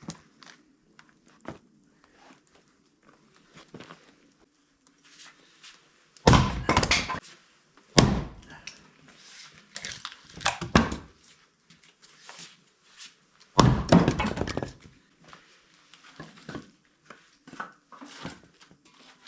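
A handful of heavy thunks a few seconds apart, consistent with firewood being handled, with quieter knocks and rustling between them.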